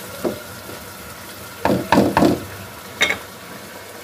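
Wooden spatula stirring chicken in masala gravy in a nonstick pan: a few sharp knocks and scrapes against the pan, three close together near the middle and one more about three seconds in, over a steady sizzle of the simmering gravy.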